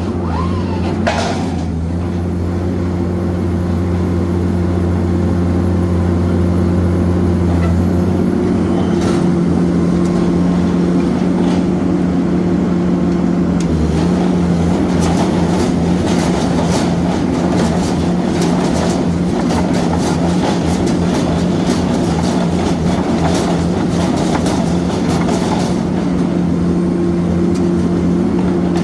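Excavator engine running at a steady speed. From about halfway through, it is joined by a stretch of rapid metallic clanking and rattling.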